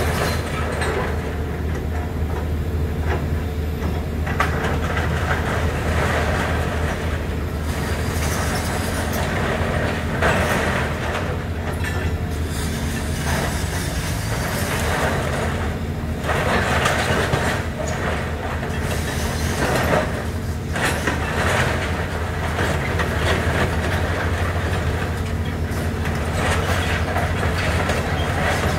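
Hydraulic excavator's diesel engine running steadily under load while its bucket crushes and drags twisted steel framing and roof sheeting, giving irregular metallic clanking, scraping and screeching, loudest in bursts about ten, sixteen and twenty seconds in.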